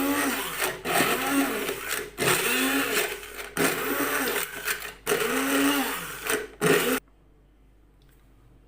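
Electric blender grinding in about five short pulses, its motor pitch rising and falling with each pulse. It stops abruptly about seven seconds in.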